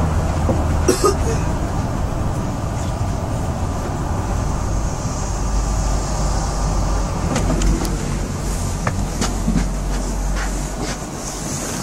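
Moscow monorail car running along its elevated beam, heard from inside the carriage: a steady low rumble with a thin whine, and scattered clicks and knocks.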